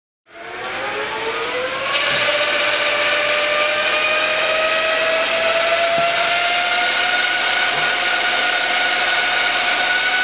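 Align T-Rex 600 ESP electric RC helicopter spooling up: a motor and gear whine that climbs quickly in pitch for the first two seconds, then keeps rising slowly as the rotor head comes up to speed, over a rushing hiss.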